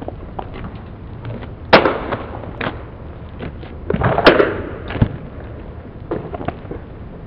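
Two sharp knocks, one about two seconds in and a louder one about four seconds in, among scattered fainter clicks.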